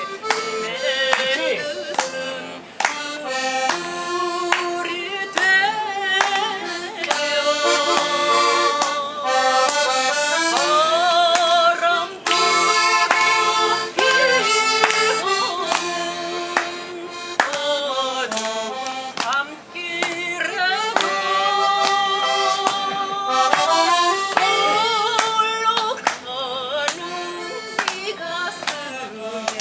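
Instrumental break of a song's backing track: a lead melody with vibrato over a steady beat, with the audience clapping along in time.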